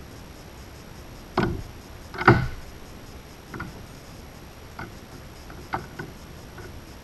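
Handling noise from a white cable being untangled: two louder knocks in the first half, then several fainter, scattered ticks.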